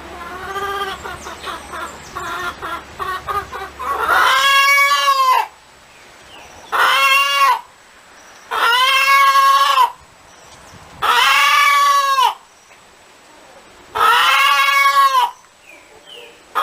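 Hen cackling: rapid clucks for about four seconds, then five long drawn-out calls that rise and fall in pitch, each about a second long, with short pauses between them.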